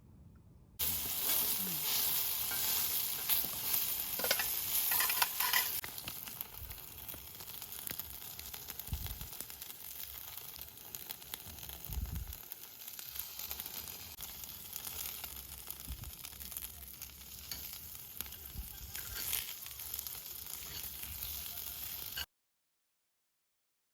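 Wood campfire crackling and hissing, with many small pops. It is loudest for the first few seconds, runs on more evenly with a few low thumps, and cuts off suddenly shortly before the end.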